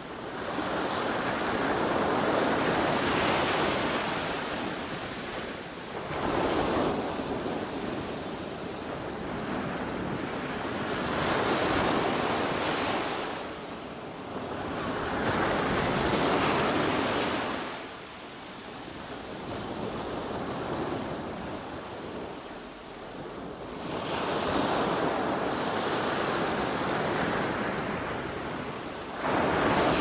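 Ocean surf: waves washing in and drawing back in slow surges, each swelling and fading over a few seconds, with a new surge about every four to five seconds.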